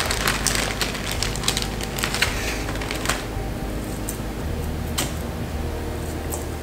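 Plastic bag crinkling and rustling as a block of almond paste is pulled free of its wrapping and broken apart by hand. A quick run of crackles over the first three seconds, then scattered clicks.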